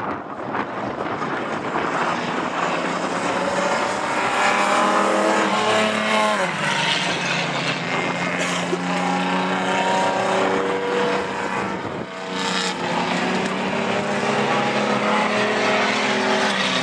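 Several sedan race cars' engines running hard, the pitch climbing under throttle and dropping sharply as they shift or lift off, once about six seconds in and again about twelve seconds in.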